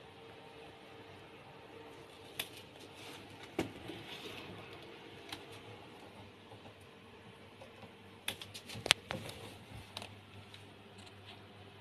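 Handling noise: scattered light clicks and taps, a few in the first half and a quick cluster about eight to nine seconds in, over a faint steady hiss.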